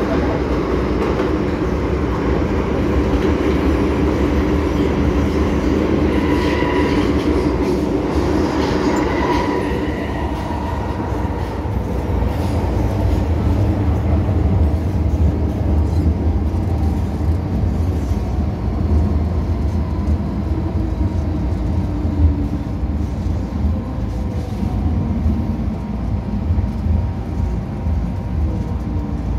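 MTR M-Train electric multiple unit running through a tunnel, heard from inside the passenger car: a continuous rumble of wheels and running gear, with a thin ringing whine for a few seconds about a quarter of the way in. After that it settles into a lower, deeper rumble.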